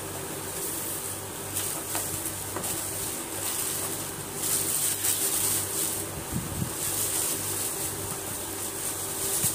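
Plastic wrapping rustling and crinkling in irregular bursts as it is pulled off a new mixer grinder and its jar, over a steady background hum.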